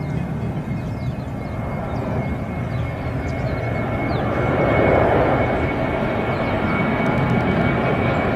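Jet airliner engines at takeoff power during the takeoff roll: a steady roar with a thin high whine, swelling loudest about halfway through as the plane passes.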